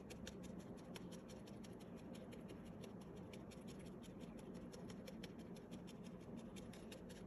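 Felting needle jabbing repeatedly into wool roving, a faint, quick scratchy crunch about five or six times a second, tacking a loose fluffy bit of wool back down onto the felted pumpkin.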